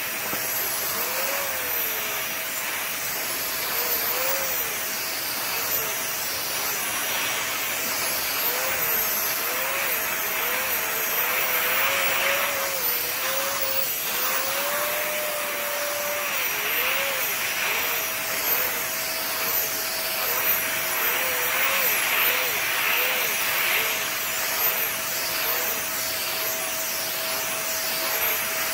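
Stick vacuum cleaner running on a rug as its floor head is pushed back and forth. The motor gives a steady whine over a rushing suction noise, and a second tone wavers up and down again and again throughout.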